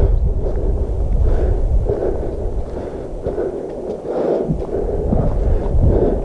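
Wind buffeting the microphone with a heavy low rumble, over steady footsteps on a dirt trail, a bit under two steps a second.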